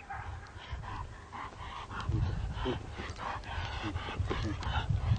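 Dogs barking, short barks in quick succession, over a steady low rumble.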